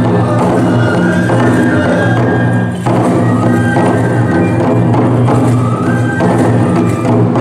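Toramai (tiger dance) festival music: taiko drums beaten in a steady driving rhythm, with a bamboo flute melody and small hand cymbals ringing over it. The music dips briefly about three seconds in.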